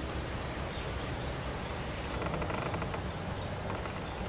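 A bulbul gives a quick chattering call about two seconds in, over a steady background hiss.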